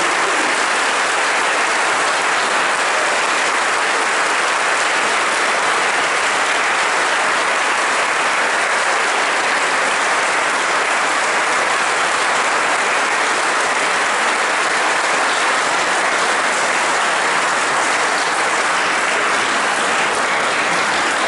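Congregation applauding: a dense, steady round of clapping that holds unbroken throughout.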